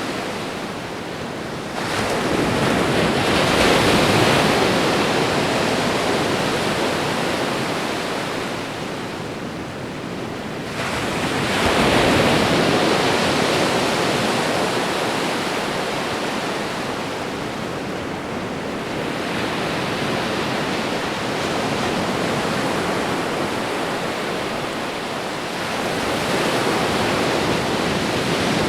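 Ocean waves breaking and washing up a shore in a continuous rush. Two sudden louder surges, about two seconds in and about eleven seconds in, each fade slowly as the water runs back.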